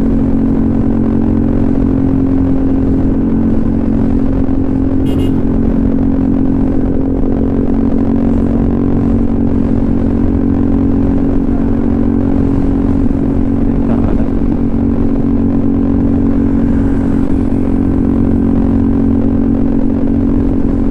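Honda ADV 150's single-cylinder engine running through an aftermarket SC Project exhaust, holding steady revs while riding. A brief high chirp cuts in about five seconds in.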